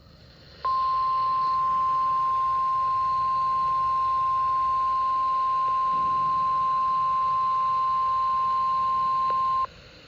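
NOAA Weather Radio 1050 Hz warning alarm tone: a single steady, pure beep that starts under a second in, holds for about nine seconds and cuts off sharply, over faint radio hiss. It signals that a warning broadcast follows.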